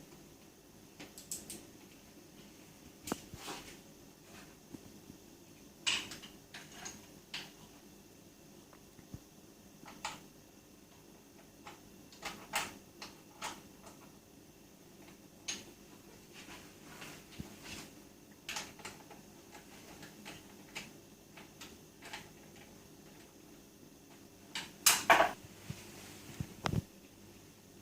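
Scattered clicks and clunks of hand tools and parts as a front number board is fitted to a minibike, with a cluster of louder knocks about 25 seconds in, over a faint steady hum.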